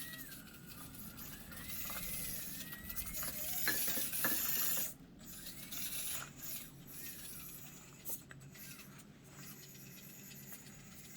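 Axial SCX24 micro rock crawler climbing over rocks: its small electric motor and gear drivetrain whine, the pitch rising and falling with the throttle, with scattered clicks of tires and chassis on rock. The loudest stretch is around four seconds in and cuts off suddenly about a second later.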